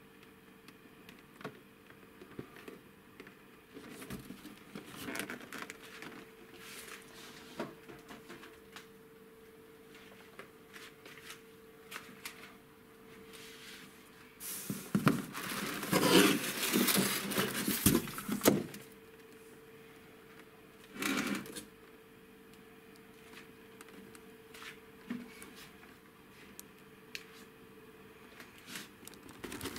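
Cardboard toy boxes and a shipping carton being handled: scattered taps and light rustles, then, about halfway through, a loud stretch of several seconds of cardboard scraping and rustling as a boxed toy is pulled out of the carton, followed a few seconds later by one short rustle. A faint steady hum runs underneath.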